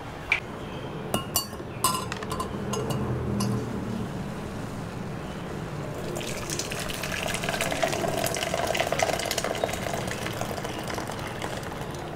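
A few sharp clinks of glass or crockery, then liquid poured into a container for several seconds.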